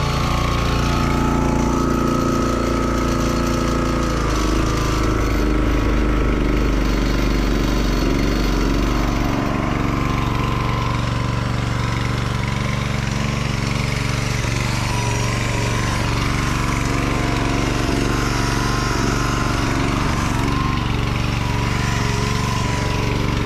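Kärcher gas pressure washer's small four-stroke engine running steadily with its pump turning, being run to warm the oil for an oil change. Its note shifts about four seconds in and again around nine seconds.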